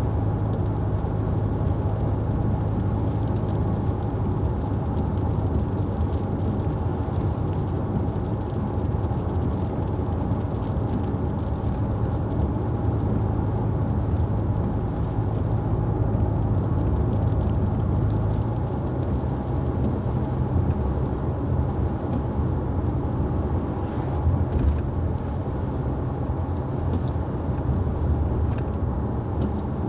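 Car driving on the road: steady engine and road rumble, with the engine note shifting about two-thirds of the way through.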